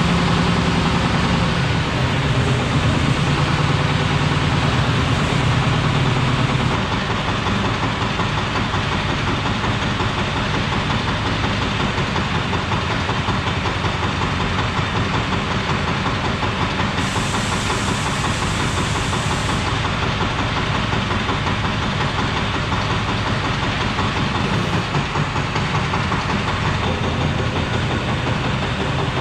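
Single-cylinder diesel engine of a 1.5-tonne forklift running with a steady, rapid knocking beat, heavier and deeper for the first several seconds and then settling a little.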